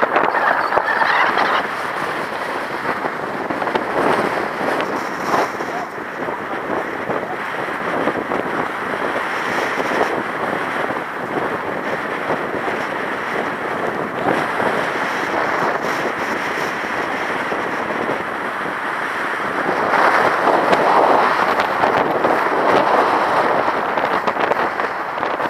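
Strong wind gusting over the microphone on a beach where it is drifting sand along the ground, a steady rush of noise that swells louder in gusts, strongest near the end.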